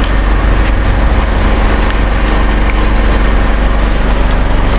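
An engine running steadily at an even speed: a loud, unbroken low drone.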